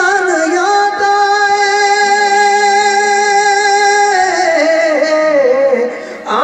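A man's solo voice singing a naat: he holds one long, steady note for about three seconds, then winds downward in a wavering run. The run breaks off just before the end.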